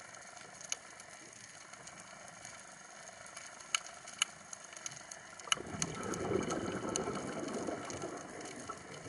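Underwater sound on a scuba dive: scattered sharp reef clicks, then from about halfway through a diver's regulator exhaust releasing a long rush of exhaled bubbles.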